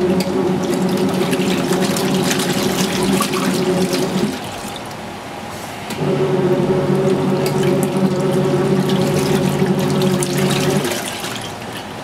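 Kuppet twin-tub portable washer's wash tub agitating a load of bed sheets: the pulsator motor hums for about four seconds, stops for about two while the water keeps sloshing, then runs again for about five seconds and stops near the end. The stop-and-start is the wash cycle pausing to reverse direction.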